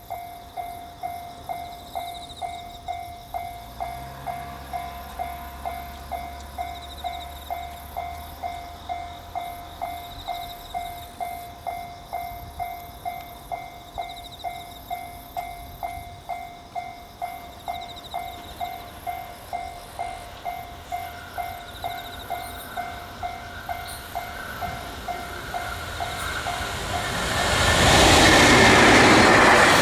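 Japanese level-crossing warning bell ringing steadily, about two strikes a second. Near the end the loud noise of the approaching freight train, hauled by an EF81 electric locomotive, swells up and drowns the bell.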